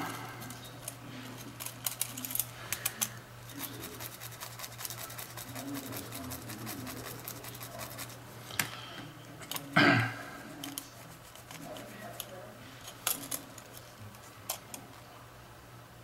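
Light clicks, ticks and scraping of a metal tool and fingers handling a small printed circuit board as a component is worked in and the board is wiped clean, over a steady low hum.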